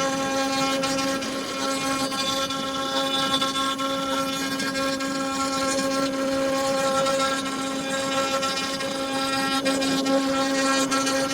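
Electric motor of a woodworking power tool running steadily at one constant pitch, a level whine over a light hiss.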